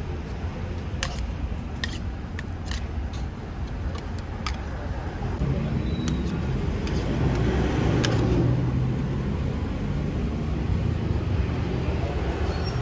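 Roadside traffic rumbling steadily, with a vehicle passing and growing louder about halfway through. Over it come a few sharp clicks of the metal scraper and spatula against the pancake pan.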